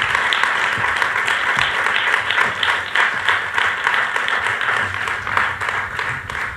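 Audience applauding steadily: many hands clapping in a dense patter.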